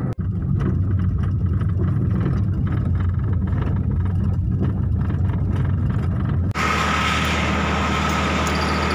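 Low, steady engine and road rumble heard from inside a moving car's cabin. About two-thirds of the way through it changes abruptly to a steadier, brighter outdoor hiss with a thin high tone over a low hum.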